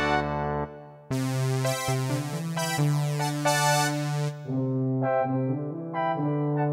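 Yamaha PSR-E403 portable keyboard playing its preset voices: a held sound fades out within the first second, then a synth-like voice plays sustained notes and chords from about a second in.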